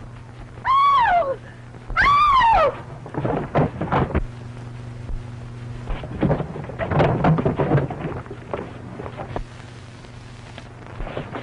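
A woman screams twice in quick succession, high-pitched shrieks that fall away at the end. They are followed by irregular thumps and scuffling.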